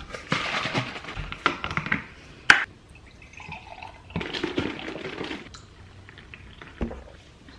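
Liquid poured into a coffee mug in two pours, with a sharp clink between them.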